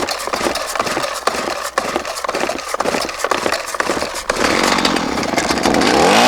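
Two-stroke Stihl chainsaw just started, running at an uneven, lumpy idle, then opened up to a steady high-speed run about four seconds in.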